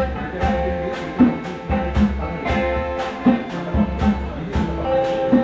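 Live band music led by guitar, with a steady beat of about two strokes a second.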